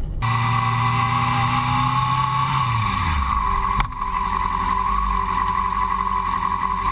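Motorcycle engine running while the bike stands at a crossing, with a steady high whine over it. The low engine note drops about three seconds in, and there is a single sharp click a little later.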